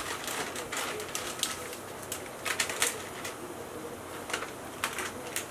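Water at a rolling boil in a wide pan of noodles: a steady bubbling hiss with irregular small pops and clicks throughout.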